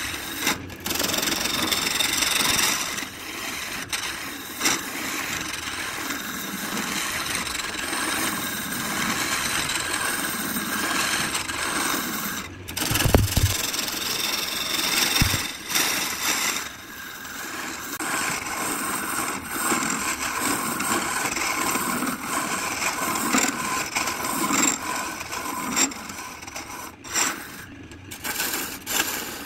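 Wood lathe running while a turning gouge cuts into a spinning blank of coloured pencils set in epoxy: a rough, continuous cutting and scraping noise that swells and eases as the tool bites. A brief low hum comes in about halfway through.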